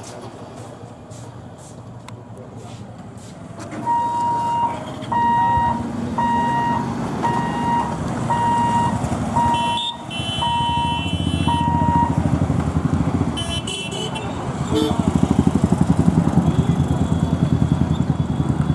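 Motorcycle engines running and pulling away through level-crossing traffic, louder toward the end, with a short horn honk about ten seconds in. Over the engines an electronic beeper sounds nine times, about two beeps a second, from about four seconds in.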